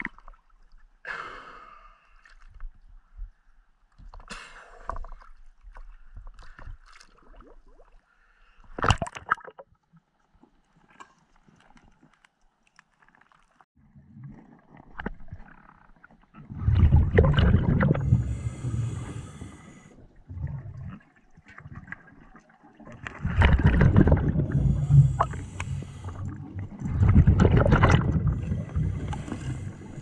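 Water splashing and sloshing at the surface, with one sharper splash about a third of the way in. Then, underwater, a scuba diver's regulator: three long, loud bursts of exhaled bubbles with a hiss of air, a few seconds apart.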